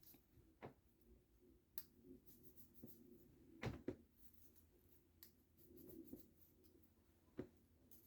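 Near silence: quiet room tone with a few faint, scattered clicks and taps, the loudest a short double tick about four seconds in.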